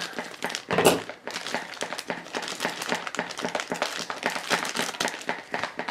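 Thin clear plastic bag being cut open with scissors and pulled apart by hand: a dense, fast crinkling and crackling of the plastic, loudest about a second in.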